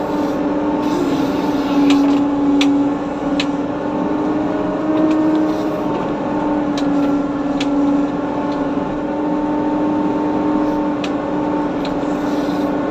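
Diesel engine of heavy road-repair machinery running steadily with a constant drone, with scattered sharp clicks.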